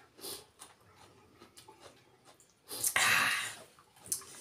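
A loud, breathy exhale through the mouth, lasting about a second, comes about three seconds in. Around it are faint clicks and smacks of eating.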